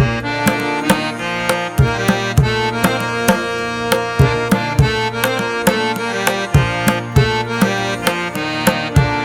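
Background music: held melodic instrument tones over a steady hand-drum beat.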